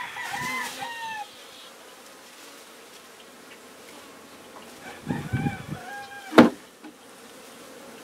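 Honey bees buzzing steadily around a colony being cut out and handled, with chickens calling in the first second and again around five seconds in, and one sharp knock about six and a half seconds in.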